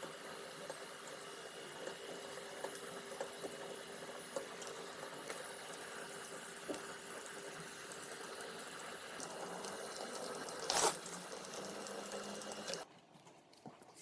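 UV DTF printer running while printing: a steady mechanical whir with a faint hum and scattered small clicks. Near the end there is a short loud burst of noise, and soon after the sound drops away suddenly.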